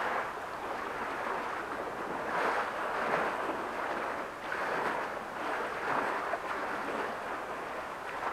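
Small sea waves washing against shore rocks: a steady rushing wash that surges and eases every second or so.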